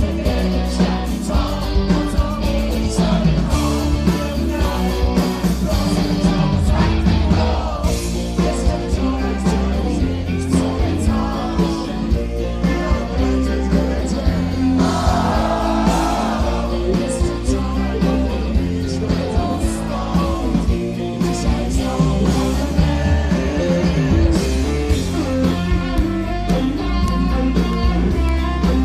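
Live rock band playing: male lead vocals over electric guitar, bass and drums, loud and continuous.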